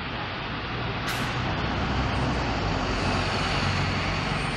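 City bus engine running as the bus pulls past, with a short hiss of released air about a second in.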